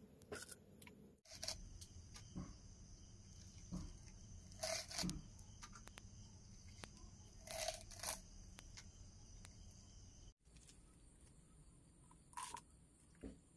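Faint, scattered rustling and tearing of fresh green leaves being handled and cut on a wooden chopping block, with a few louder rustles in the middle.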